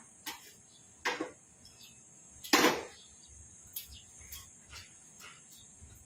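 Irregular short knocks and clacks, a dozen or so, the loudest about two and a half seconds in, over a steady high hiss.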